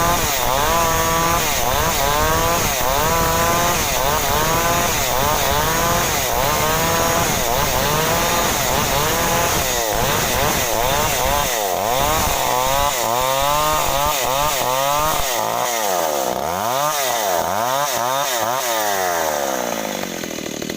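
Stihl MS 381 two-stroke chainsaw cutting through jengkol wood to square it into a beam, running at high speed with its engine pitch rising and falling about twice a second. The swings grow deeper in the second half.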